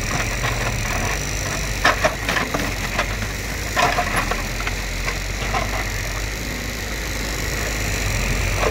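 JCB backhoe loader's diesel engine running steadily as the machine pushes over a bush, with woody branches cracking and snapping several times, loudest about two and four seconds in.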